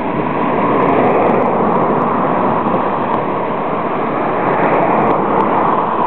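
Steady, loud rushing of strong wind over the microphone.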